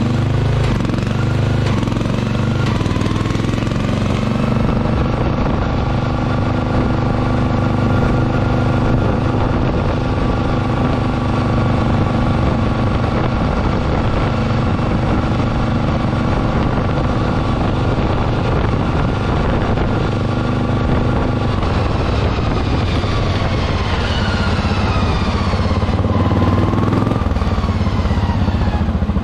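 Pulley-swapped 1996 Murray lawn tractor's 12 hp Briggs & Stratton engine running hard while the tractor drives along a road. The engine pitch rises over the first few seconds, holds steady, then drops a few seconds before the end as it slows, picking up slightly again at the very end.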